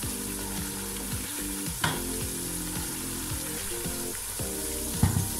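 Sliced onions deep-frying in hot oil in a pot, a steady sizzle as they are fried towards brown, stirred with a wooden spatula that knocks against the pot twice, about two seconds in and near the end.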